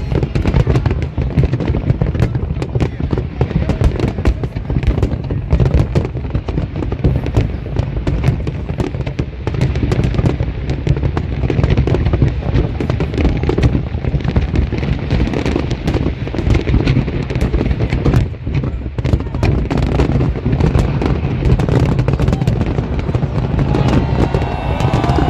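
Large fireworks display: a dense, continuous barrage of bangs and crackles over a steady low rumble.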